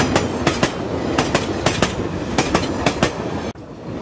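Train wheels clicking over rail joints in a steady clickety-clack, the clicks coming in pairs and small groups over a running rumble. The sound cuts out briefly near the end.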